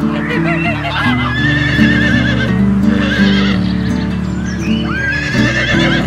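Horse whinnying several times, each call a quavering, wavering neigh, over background music.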